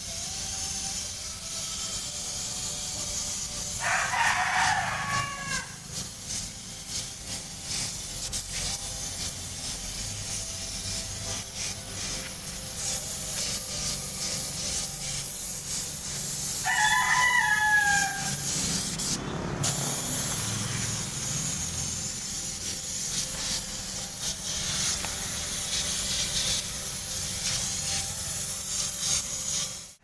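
Air spray gun hissing as paint is sprayed onto a tractor's rotary tiller. A rooster crows twice, about four seconds in and again past sixteen seconds.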